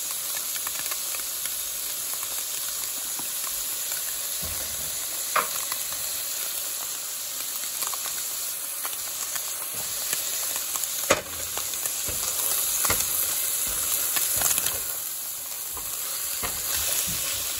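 Crumbled tofu and onions sizzling steadily in a hot skillet while being stirred with a plastic spatula, with a few sharp knocks of the spatula against the pan, the clearest about five and eleven seconds in.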